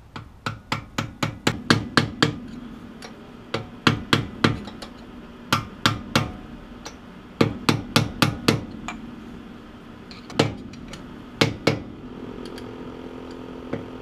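A mallet tapping a screwdriver worked around the rim of a front-hub dust cap, driving the cap onto the new disc-brake rotor hub. The taps are quick and sharp, coming in runs of several with short pauses between the runs.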